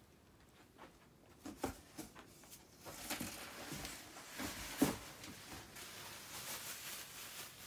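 Faint rustling and handling of packaging in a cardboard box, with a few light knocks and scrapes as items are moved and pulled out.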